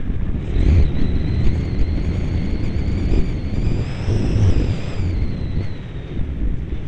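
Model aircraft's motor whining high above heavy wind buffeting on the onboard camera's microphone; the whine climbs in pitch toward the middle, drops back and fades out near the end.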